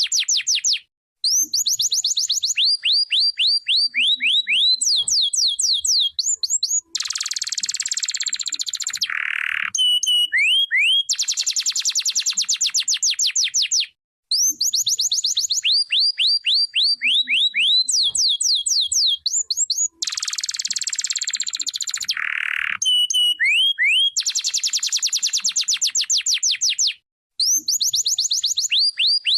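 Domestic canary singing: fast trills of rapidly repeated down-slurred notes, switching from one trill to the next, with a harsh buzzy phrase twice. The same song sequence comes round again about every thirteen seconds, with short silent breaks between.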